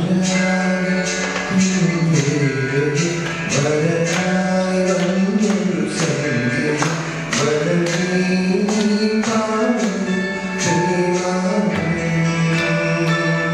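A man singing a Malayalam film song into a microphone over instrumental accompaniment, with a steady percussion beat under the melody.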